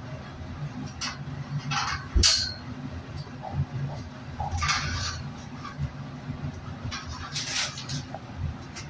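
Steady low hum of a cold room's refrigeration unit, with intermittent rustling and handling noises as a butcher works on beef hanging from hooks, and one sharp knock about two seconds in.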